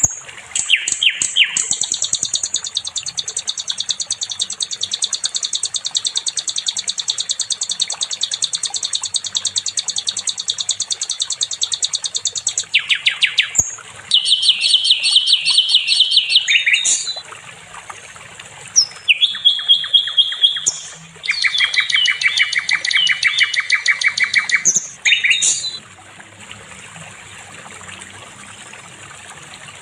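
Sikatan londo singing long, fast trills of rapidly repeated high notes, several a second. It switches abruptly from one phrase pattern to another, then goes quieter for the last few seconds.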